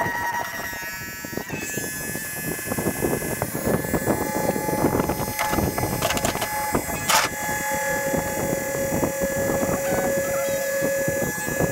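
12-volt electric fuel transfer pump running off a battery, pumping diesel out of a dropped truck fuel tank into a slip tank: a steady motor whine over a rattly hum, shifting down in pitch a couple of times, with one sharp clunk about seven seconds in.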